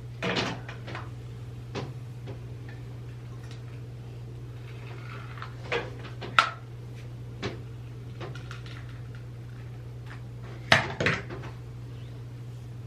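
Scattered clicks and clatters of small hard objects being handled and set down, a few at a time with the loudest near the end, over a steady low electrical hum.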